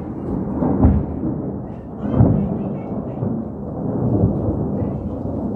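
Thunder rumbling, swelling loudest about a second in and again just past two seconds.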